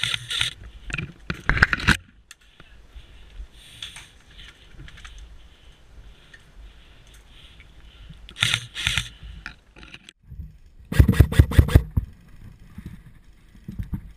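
Three short bursts of airsoft gun fire, rapid clicking shots, the loudest burst near the end. In between, the rustle and scrape of a player moving in gear.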